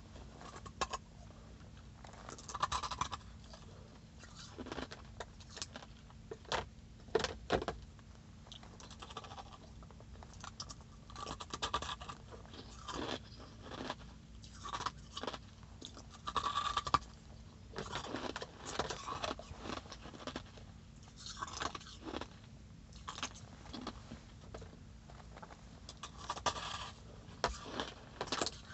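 A person biting and chewing crunchy blocks of ice close to the microphone: many sharp, crackling crunches in irregular clusters, with a faint steady hum underneath.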